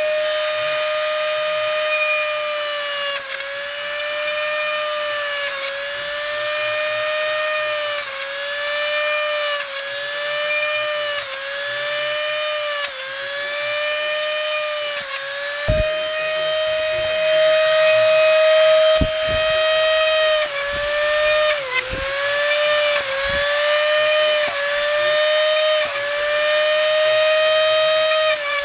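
Handheld rotary tool (mini-drill) running at high speed with a steady whine, its pitch dipping briefly again and again, about every second or so, as the bit is pressed into a motocross boot sole. It is re-drilling the sole's moulded screw holes, which do not come through, so that the screws can pass.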